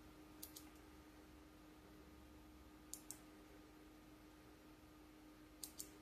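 Small hand-held switch clicking: three quick double clicks, about two and a half seconds apart, as it is worked to trigger the turn-signal input of an Arduino LED controller.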